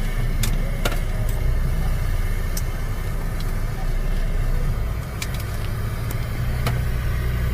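Car engine and tyre rumble heard from inside the cabin as the car moves slowly, a steady low drone with a few short clicks.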